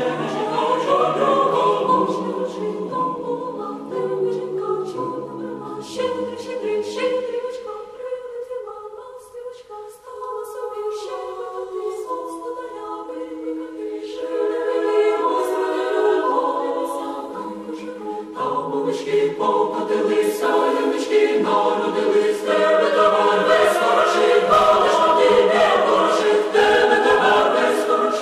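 Choir singing a cappella in held chords. It grows quieter about a third of the way in, then fuller and louder through the second half.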